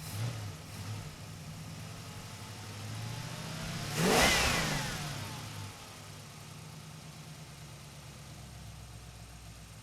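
Car engine running with a steady low hum; about four seconds in a vehicle passes close by, swelling loud and then fading as its pitch falls.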